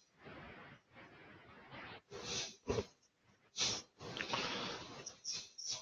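A person breathing and sniffing close to a microphone: short, irregular puffs of breath, a few of them sharper and louder.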